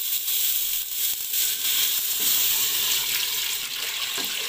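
Water being poured into a pressure cooker onto chicken pieces frying in oil, a steady splashing and sizzling.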